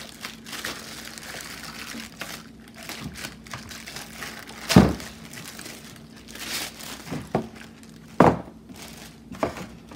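Packaging crinkling and rustling as a light fixture is unpacked from its box, with several sharp knocks as parts are handled, two of them louder, about halfway through and near the end.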